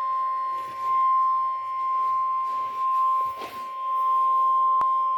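NOAA Weather Radio's 1050-hertz warning alarm tone: one steady, unbroken high tone. It signals that a severe weather warning is about to be read. A faint click comes near the end.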